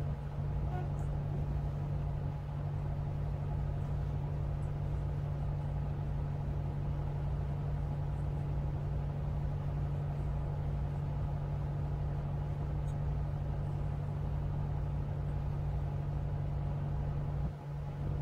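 Tugboat's diesel engines running steadily while towing a coal barge: a constant low drone with a pulsing throb beneath it.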